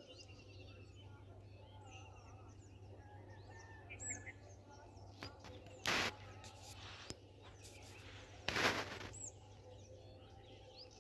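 Small birds chirping in the background, with two short bursts of rushing noise, one about six seconds in and a longer one at about eight and a half seconds.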